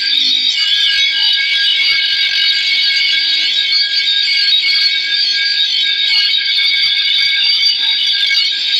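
Spinning disc of a power grinder grinding the steel blade of a long bolo knife, a steady high-pitched screech that holds without a break while the blade is sharpened.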